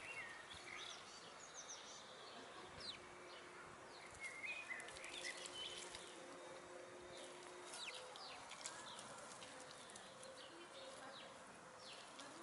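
Faint outdoor ambience with scattered short bird chirps and a faint steady buzz lasting several seconds through the middle.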